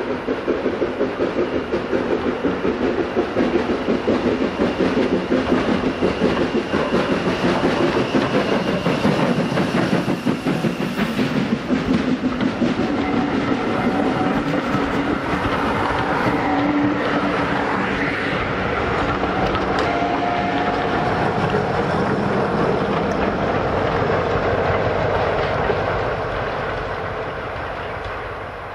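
Steam locomotive working hard as it passes, its exhaust beating in a fast, regular chuff, followed by the coaches rolling by with wheels clattering over the rail joints. The sound fades near the end as the train draws away.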